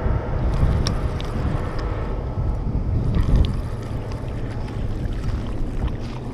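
Wind buffeting the camera microphone while a spinning reel is cranked to bring in a hooked fish. The fish splashes at the water's surface in the second half.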